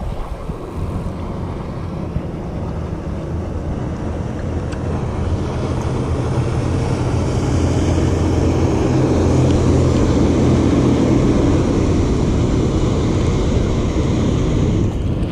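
A motorboat's engine droning as it runs past in the inlet, its hum growing louder through the middle and easing off near the end, with wind buffeting the microphone.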